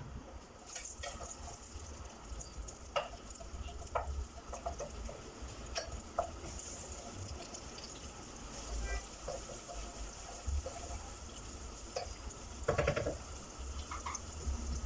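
Chopped onions sizzling in hot oil in a nonstick pot, stirred with a wooden spatula that knocks and scrapes against the pot now and then, most sharply near the end.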